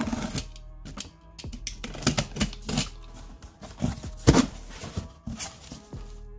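Utility knife slitting the packing tape on a cardboard box, then the cardboard flaps pushed and folded open: a run of irregular crackles, scrapes and knocks, the loudest knock about four seconds in.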